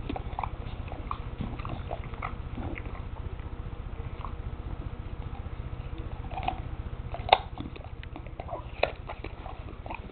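Bulldog biting and chewing a raw carrot: irregular wet crunches, with two sharp, loud snaps of carrot a second and a half apart later on.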